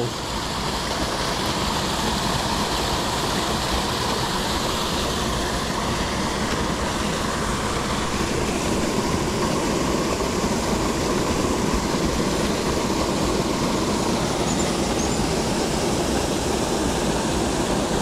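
Steady rushing of water over small waterfalls, an even continuous noise with no breaks.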